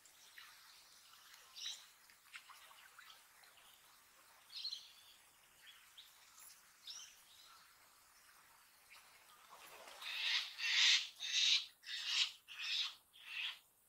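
Wild birds calling: a few short, spaced-out calls, then a quick run of about six loud, harsh calls in the last four seconds.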